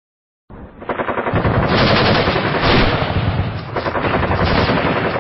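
Machine-gun fire sound effect: a long, unbroken burst of rapid automatic shots that starts suddenly about half a second in.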